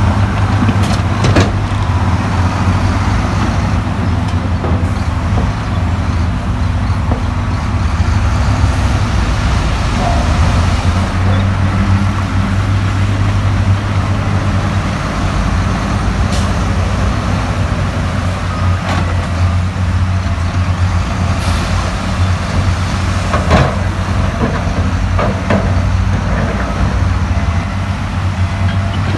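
Heavy diesel engine of earthmoving machinery running steadily with a deep, low hum, with a few sharp metallic knocks scattered through.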